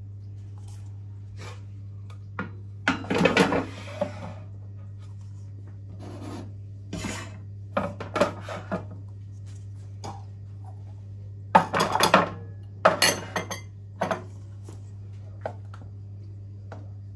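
Wooden tray and ceramic bowls being set down and shifted on a gas stove's metal pan supports: clattering and scraping in several bursts, loudest about three seconds in and again past the middle. A steady low hum runs underneath.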